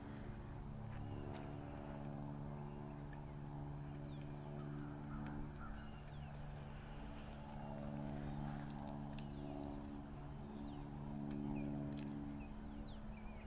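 A steady low mechanical drone with several even pitches, from a motor or machine running nearby, with faint bird chirps over it.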